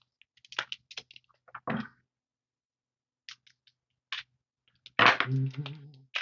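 Trading cards being handled and flipped through: short crisp clicks and snaps of card stock, then a louder, longer rustle about five seconds in.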